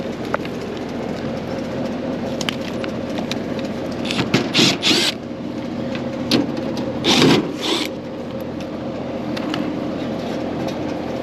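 Outdoor AC condenser fan motor running with a steady hum while the compressor stays off, because it has lost a leg of power. Short bursts of metal scraping and clattering come about four seconds in and again about seven seconds in.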